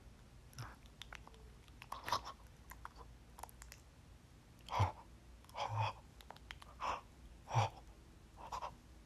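Quiet mouth sounds and breaths from a person close to a phone microphone: a string of short, irregular smacks and puffs about a second apart, with no words.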